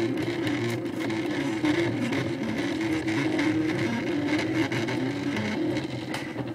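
Desktop 3D printer's stepper motors whining steadily as the print head moves, laying down plastic, the pitch shifting up and down with each change of move.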